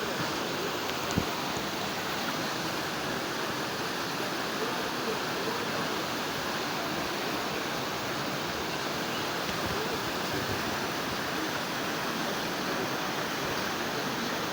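Floodwater rushing in a steady, even roar, with one sharp knock about a second in.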